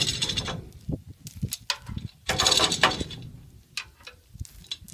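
Hand-operated spur gear winch ratcheting in short bursts of rapid clicking as it lets a tractor blade down on its chains, with fainter clicks and chain clinks between the bursts.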